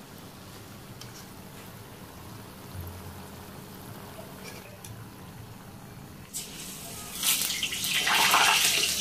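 Split-pea fritters deep-frying in hot oil, with a steady low sizzle. About six seconds in, a much louder hiss starts suddenly and swells near the end.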